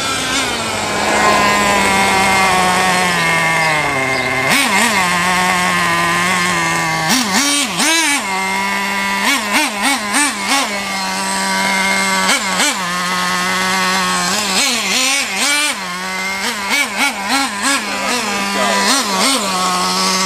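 Traxxas Jato nitro RC truck's small two-stroke glow engine running at high revs, its pitch falling in the first few seconds and then bouncing up and down in quick throttle blips, several rapid rev bursts in a row from about seven seconds in.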